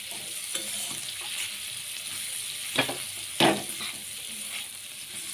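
Sliced bitter gourd frying in oil in a metal kadai (wok), hissing steadily while a metal spatula stirs and scrapes through it. Two sharp knocks of the spatula against the pan come near the middle.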